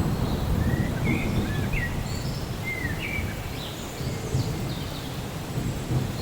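Low rumble of distant thunder dying away over the first few seconds, over a steady hiss of rain. A bird chirps several times, in short chirps, across the first half of the stretch.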